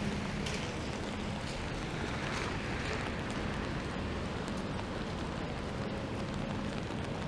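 Rainy city street ambience: a steady hiss of falling rain and traffic on wet pavement, with a low vehicle engine hum in the first second or so and again near the end.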